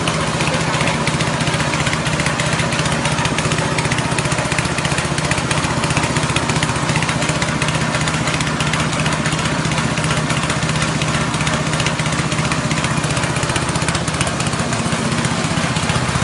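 Rice-husk grinding mill driven by a 6.5 HP petrol engine, running steadily under load as it grinds husks into fine bran: a loud, even engine drone with the dense rushing noise of the grinder.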